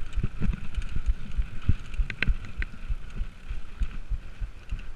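Mountain bike rolling fast over a dirt and gravel forest trail: irregular low thumps and rattles as it jolts over bumps, over steady tyre noise.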